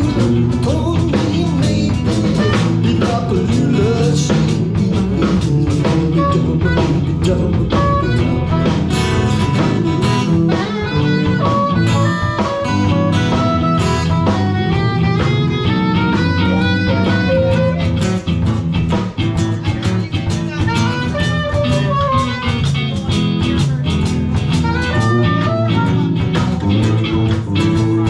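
A live blues-rock band plays an instrumental passage: a lead guitar line with bending, gliding notes over a steady backing with drums.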